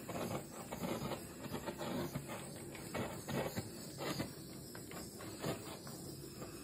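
Small handheld torch flame hissing steadily as it is passed over wet acrylic paint to pop surface bubbles, with scattered soft clicks throughout.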